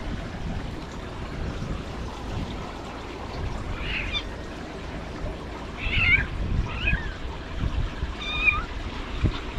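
Kitten mewing: a few short, high calls in the second half, over a low rumble of wind on the microphone.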